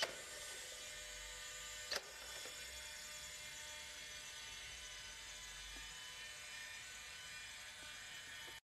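Faint steady electric hum and whine from the walking humanoid robot's servo motors, with two short clicks about two seconds apart.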